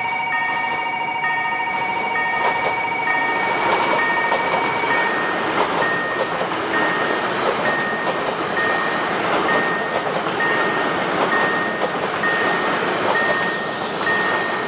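Korean level-crossing electronic warning bell ringing steadily, about once a second, while a train passes over the crossing with a continuous rumble. A long held tone sounds over the first five seconds.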